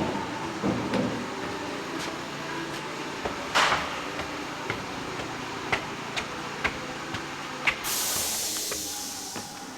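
Building-site work sounds: scattered sharp taps and knocks, one louder knock about three and a half seconds in, then a hissing burst lasting about a second and a half near the end.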